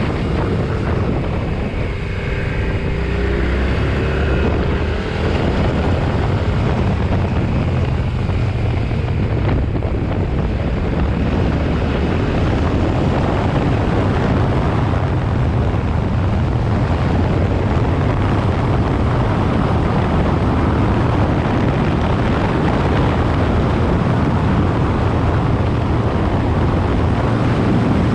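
Yamaha Ténéré 700's 689 cc parallel-twin engine running under way, heard from on the bike with wind noise on the microphone. The engine note drops off and then climbs again in the first five seconds, then runs on steadily.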